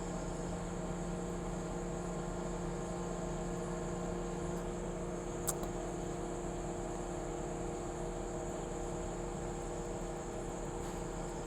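Steady drone of the XCMG crane's engine running at a constant pace, an even hum with no change in pitch. One short sharp click about halfway through.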